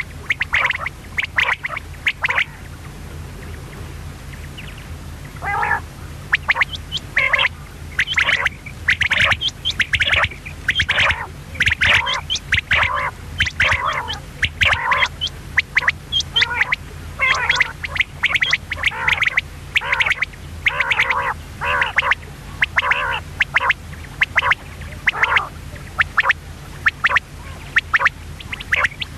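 Common quail calling over and over in quick runs of short notes, with a pause of about three seconds near the start. A low steady hum runs underneath.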